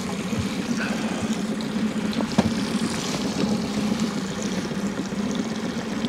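Small outboard kicker motor running steadily at trolling speed, a constant low hum, with a couple of light knocks a little past two seconds in.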